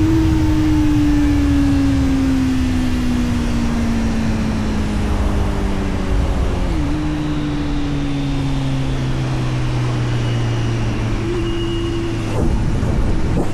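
Kawasaki Z900's inline-four engine running with its exhaust note. The revs fall slowly for several seconds, the pitch steps down about seven seconds in, and the engine then holds a steady lower note, with a brief rise near the end.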